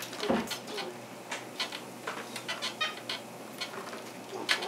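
Small plastic toy pieces clicking and knocking against each other and a plastic toy shopping cart as they are handled, a string of light, irregular taps.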